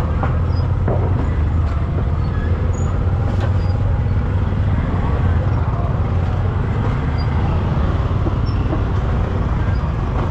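Steady low rumble of motor traffic going by, with indistinct voices in the background.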